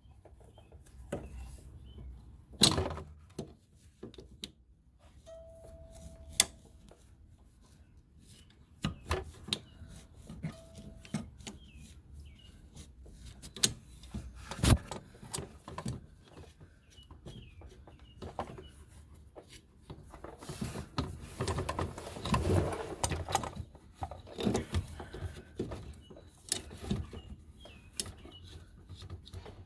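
Hand tools and metal parts being handled while loosening fuel filler hoses: scattered clicks, clinks and knocks, with a few seconds of rubbing and scraping about two-thirds of the way through.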